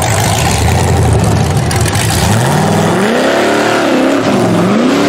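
Rock bouncer buggy's engine revving hard as it climbs a rock ledge: a low steady drone, then about halfway through the pitch climbs sharply, dips and rises again.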